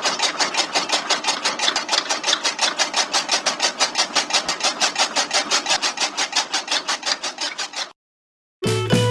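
Miniature belt-driven chaff cutter chopping grass: a fast, even chop-chop of the flywheel blades slicing stalks, about six cuts a second, driven by a small electric motor. The chopping cuts off abruptly near the end, and music starts.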